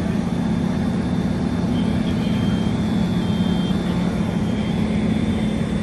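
Steady low engine drone, running without change.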